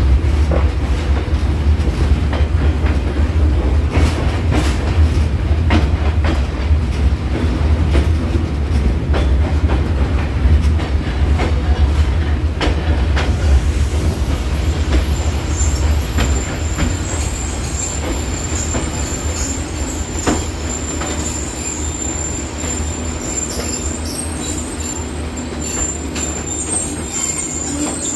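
Passenger train rolling on the rails, with a low rumble and a rapid run of wheel clicks over the track. From about halfway a high, steady wheel squeal sets in and the rumble eases, as the train slows coming into the station.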